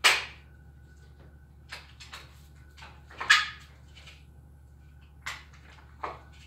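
A few sharp knocks and bumps, the loudest right at the start and about three seconds in, with smaller ones between.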